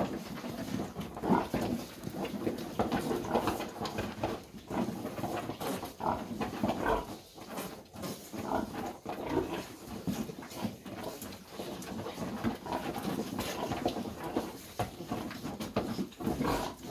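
A sow and her litter of piglets grunting and squealing while the piglets suckle: a continuous, irregular jumble of short animal sounds.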